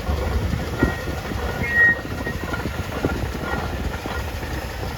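A steam traction engine running with a low rumble and irregular knocks, wind buffeting the phone's microphone. A short high-pitched tone sounds about two seconds in.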